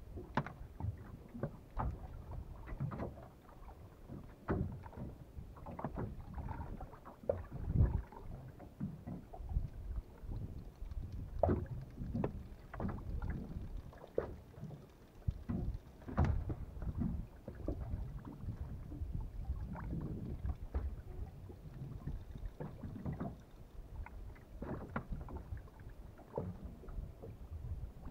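Small boat drifting in choppy water, waves lapping and slapping against the hull over a low rumble, with irregular knocks and clatter from fishing gear being handled on board. No engine is running.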